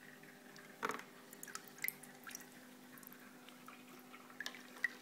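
Water dripping and small splashes at the aquarium surface: a handful of separate drops, the loudest about a second in, over a steady low hum.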